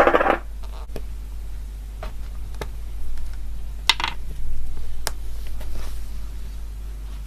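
Cloud slime being handled in its container: a brief louder sound at the very start, then scattered sharp clicks and light taps, over a steady low hum.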